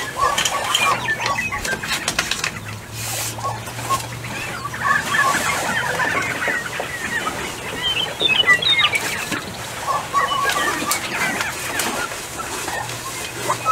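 Lesser prairie-chickens calling on their lek: a busy chorus of short cackles and clucks. A low steady hum sounds underneath in the first few seconds and again near the end.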